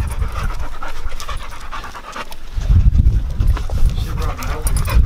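A pit bull and a Siberian husky panting rapidly right at the microphone, with low rumbling handling noise that grows louder in the second half as a hand rubs the dog's fur.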